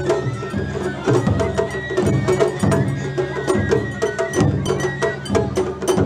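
Japanese festival float music (matsuri-bayashi): drum strokes about once a second under sharp clicking percussion and a high held flute-like melody.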